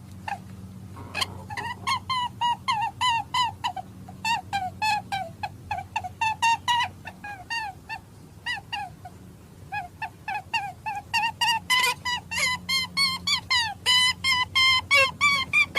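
Rabbit squeaking: a fast run of short, high squeaks, each bending in pitch, about three a second, with a few brief pauses and coming thicker in the last few seconds. A low steady hum runs underneath.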